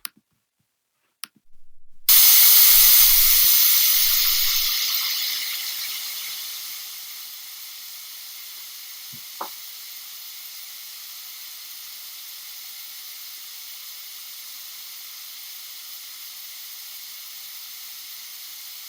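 A sudden loud burst of hissing noise about two seconds in, fading over several seconds into a steady fainter hiss.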